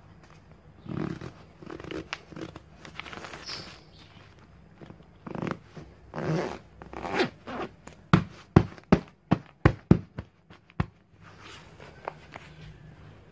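Zipper of a fabric cushion cover being pulled closed in several short pulls. About two-thirds through comes a quick run of about eight sharp clicks, roughly three a second.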